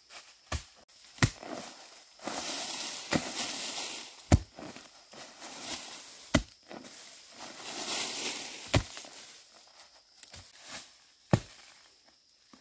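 A hand tool chopping into the ground to dig out bamboo shoots: about eight sharp strikes at uneven intervals, the loudest about four seconds in. Dry bamboo leaves rustle between the strikes.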